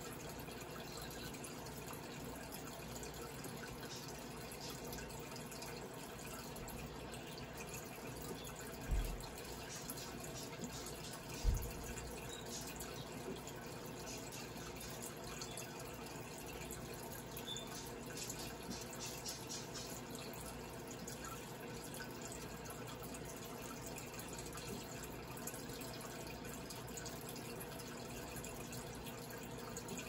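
Steady hum of a running microwave oven, played back through computer speakers, with two short low thumps about nine and eleven and a half seconds in.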